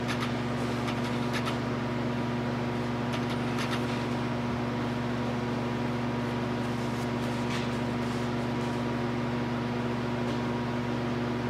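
Steady low machine hum of the workshop, with a few faint short scuffs and taps as a rag wipes around the open transmission case.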